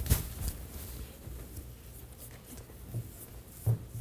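Handling noise at a desk: a sharp knock just at the start, soft rustling, and a low thump near the end.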